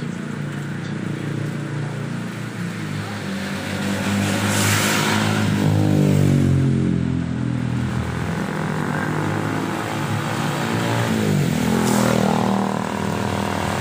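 Steady hiss of heavy rain on a wet street under a low engine hum, with a vehicle passing about five seconds in, the loudest moment, and a car swishing through on wet tyres near twelve seconds.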